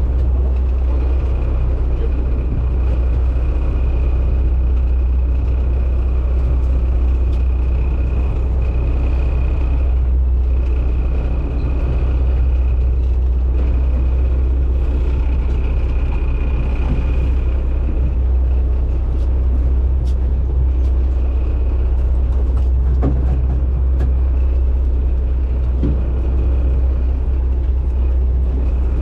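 Fishing boat's engine running steadily, a constant low drone with a faint high whine above it.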